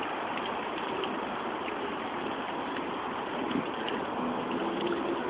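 Water running steadily from a drinking fountain's spout into water pistols held under it to refill them.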